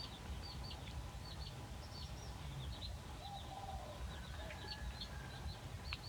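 Small birds chirping: many short, quick high chirps throughout, over a low steady background noise.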